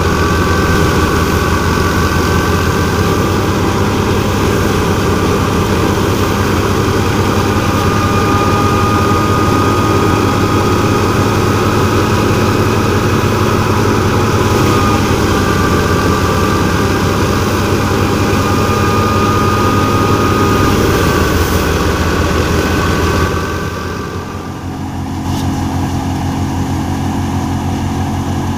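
Tractor-driven wheat thresher running under load, its spinning drum and fan and the tractor's diesel engine making a loud, steady mechanical din with a high whine over it. Near the end the sound drops abruptly to a quieter, lower drone.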